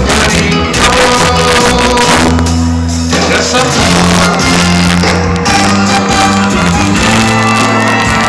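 Loud music with a steady beat and bass line, with some shouting or singing voices.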